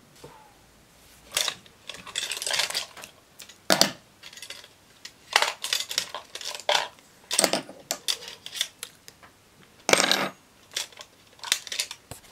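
Makeup products such as lipstick and mascara tubes clicking and clattering as they are handled and packed into a makeup bag: a string of sharp clicks and small rattles, with a short rustle about two seconds in.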